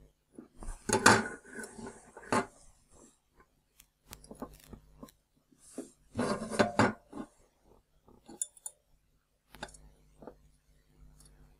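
Handling noise from a circuit board being moved, turned over and set down on a wooden table, with a coil of solder wire rattling in the hand: two clusters of clicks and rustles, about a second in and about six seconds in, with a few light ticks between.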